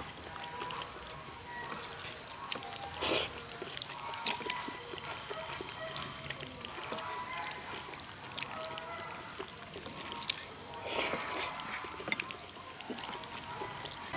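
Noodles being slurped from a bowl twice, once about three seconds in and again near eleven seconds, each slurp just after a sharp click of chopsticks on the bowl.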